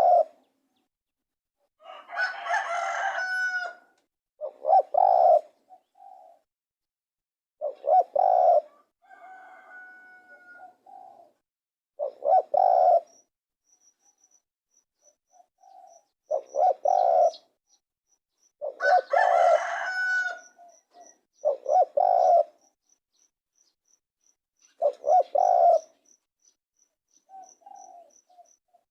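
Spotted dove cooing: short, low coos repeated in groups every few seconds. A rooster crows twice, about two seconds in and again past the middle, and a thin, high, evenly repeated chirping runs through the second half.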